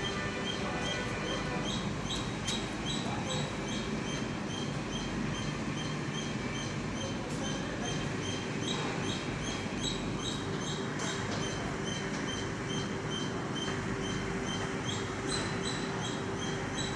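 Makino SLIM 3 CNC vertical machining center running: a steady machine hum with a regular string of short high chirps, about three a second.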